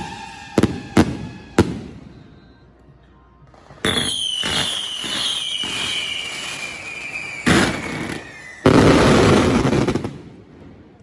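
Aerial fireworks going off: a few sharp bangs in the first two seconds, then a long falling whistle from about four seconds in, a loud bang, and a dense loud burst near the end that fades away.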